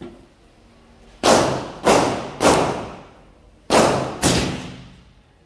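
Five suppressed shots from an M16 rifle, each a sharp report that trails off: three in quick succession about half a second apart, then after a short pause two more.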